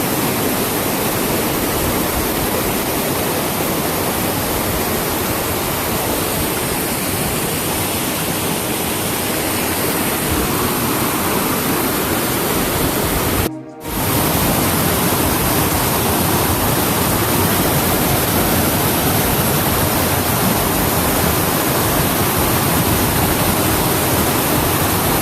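A waterfall flowing strongly, heard as a steady, even rush of water. It cuts out for a split second about halfway through.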